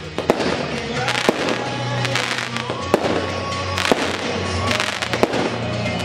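Aerial fireworks bursting overhead, with about five sharp bangs roughly a second apart, over background music.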